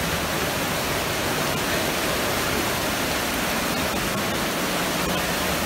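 Steady, even rushing noise that holds at one level with no rhythm or pitch.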